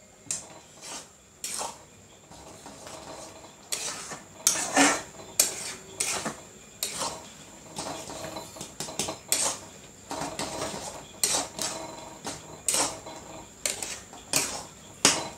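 Steel ladle stirring thick dal in a metal pan: repeated irregular scrapes and clinks of metal against the pan, growing busier after a few seconds.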